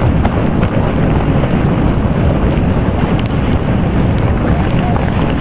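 Heavy wind buffeting the microphone and water rushing and splashing under an inflatable towed tube as it is pulled at speed across the water.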